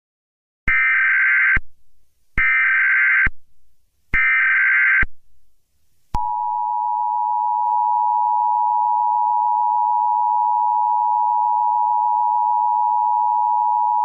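Emergency Alert System alert: three short bursts of SAME header data, about a second each with short gaps, then after a brief pause the steady two-tone attention signal sounds and holds unchanged.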